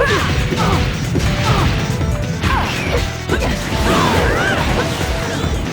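Animated fight sound effects: repeated crashes and whacks with sweeping whooshes, over background music.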